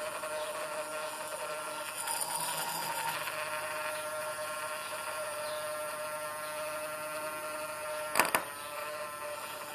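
Handheld battery milk frother whirring steadily as its spinning whisk froths instant coffee in a glass, the coffee starting to turn to foam. Just past eight seconds in comes a brief sharp knock, twice in quick succession.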